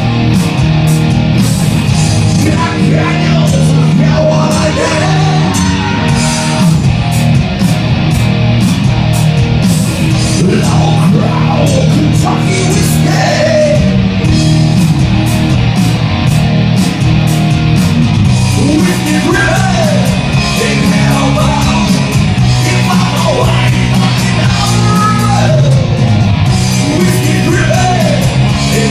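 Live rock band playing loud and steady, with guitar, drums and a singing voice over sustained low notes.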